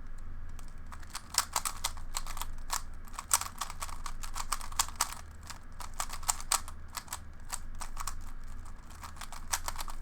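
Plastic Rubik's Cube being turned fast by hand: quick, irregular clicking and clacking as its layers are twisted, in rapid clusters.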